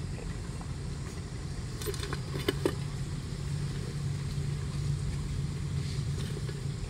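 A metal ladle tipping hot wood embers onto a metal pot lid for dum cooking, with a few sharp clinks about two to three seconds in, over a steady low hum.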